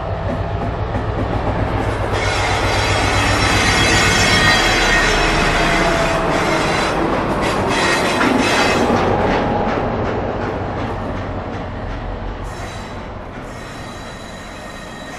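Class 60 diesel locomotive running light at low speed past the platform. Its engine drones on the approach, and a high-pitched wheel squeal joins about two seconds in. Wheel clicks over the rail joints come as it passes, then the sound fades as it draws away.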